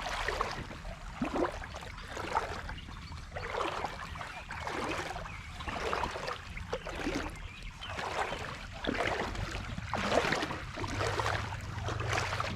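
Boots wading through shallow creek water, a slosh and splash with each stride, about one step a second.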